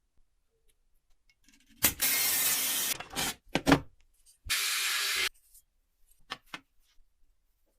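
Two steady hissing spray bursts: a longer one of about a second, then a shorter one, with a few sharp clicks and knocks from handling between and after them.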